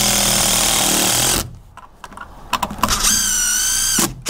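DeWalt 18V XR cordless drill driver driving screws into a timber butt block. One steady run stops about a second and a half in; a second, shorter run starts about three seconds in with a whine that rises and then holds.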